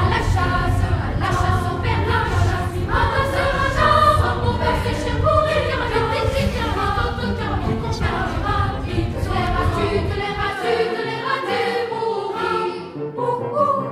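Background music of a choir singing, with a low rumble underneath that cuts off about ten and a half seconds in; the music fades out at the end.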